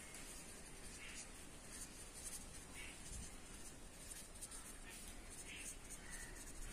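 Marker pen writing on paper: faint, irregular scratching strokes as letters are drawn.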